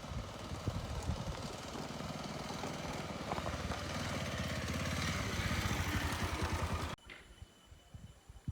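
A small engine running steadily, growing slowly louder, then cut off abruptly about seven seconds in. After the cut, scattered faint ticks and a thin steady high tone.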